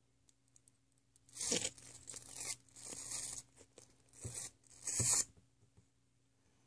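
A plastic squeeze bottle of liquid glue crackling and crinkling as it is squeezed, in four short noisy bursts.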